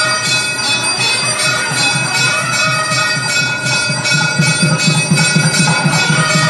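Hindu temple bells ringing continuously during puja, struck about three times a second so that the ringing tones keep sounding. A low pulsing beat runs underneath.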